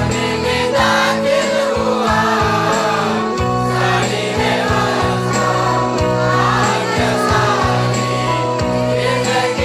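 Hindi Christian worship song: singing over a backing band with sustained bass notes and a steady beat ticking about twice a second.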